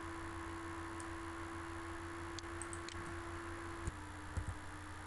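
Steady low electrical hum with a constant tone that steps slightly lower near the end, and a few faint clicks of a computer mouse.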